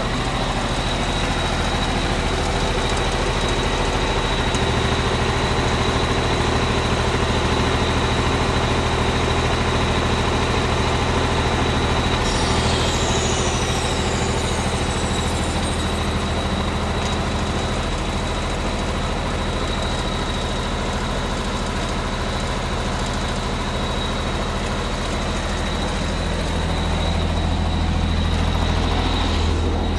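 Diesel engine of a 2003 Vögele Super Boy asphalt paver running steadily, with a thin high whine over it. The engine note shifts slightly a few times.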